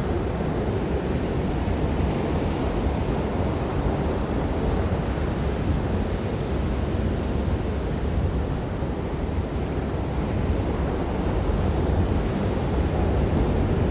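Steady rushing noise of wind and surf, heaviest in the low end, with wind buffeting the microphone.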